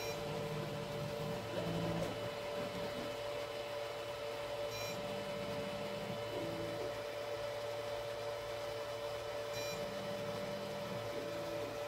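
Tronxy XY2 Pro 3D printer auto-levelling: its stepper motors whine in short moves as the head steps between bed probe points, a move roughly every five seconds, over a steady hum. A very short high blip comes twice, about five and ten seconds in, as the probe points are taken.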